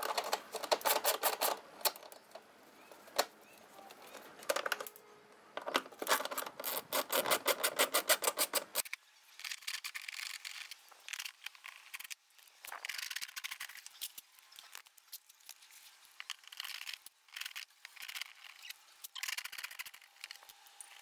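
Hand tools working on small fasteners: two runs of rapid, evenly spaced clicks near the start and again about six to nine seconds in, with scattered taps and rattles between them.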